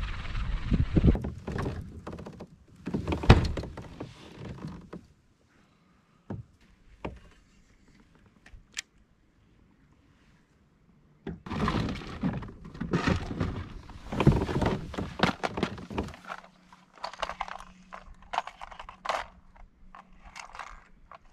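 Fishing gear being handled aboard a kayak: irregular thunks, knocks and rattles, with a quiet stretch of several seconds in the middle broken by a few single clicks.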